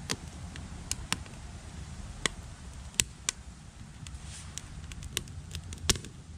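Small wood fire crackling inside an aluminium beer-can survival stove: a dozen or so sharp, irregular pops over a steady low rumble of wind on the microphone.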